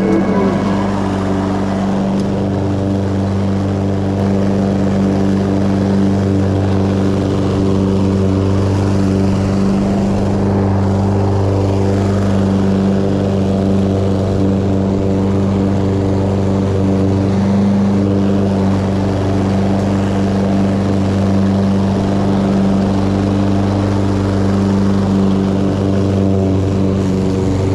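Lawn mower running steadily with an even, unchanging drone.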